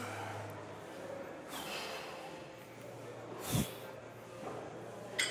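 A person breathing hard during seated cable rows, with three sharp breaths a couple of seconds apart. The one about three and a half seconds in is the loudest. A steady low hum runs underneath.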